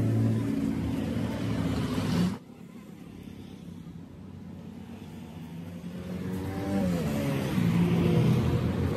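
A motor vehicle's engine running nearby. It cuts off abruptly about two and a half seconds in, then returns in the second half with its pitch dipping and rising as it revs.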